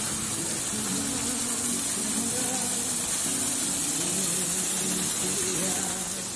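Artificial waterfall pouring down a rock wall into a pond: a steady rush of splashing water.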